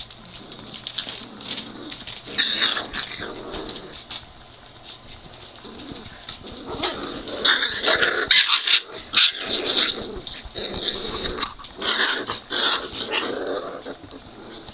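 Three-week-old Great Dane puppies making small pitched play noises as they tussle: a brief burst of calls, then after a quieter spell a longer, louder run of them.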